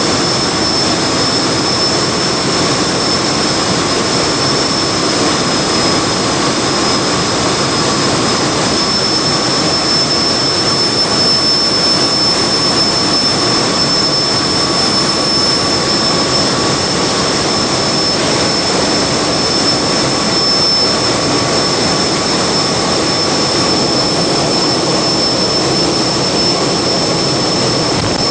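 Giant industrial gas engines running: a loud, steady mechanical din with a thin high whine over it and no break or change in pace.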